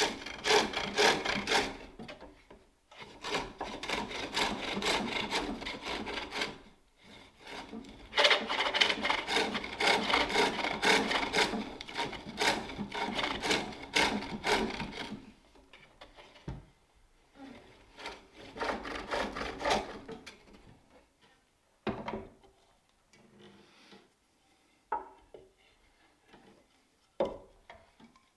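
Turning tool cutting a wooden bowl on a pole lathe: rhythmic scraping strokes, about three a second, in loud runs with short pauses. The cutting stops about halfway through, leaving a few scattered knocks and light scrapes.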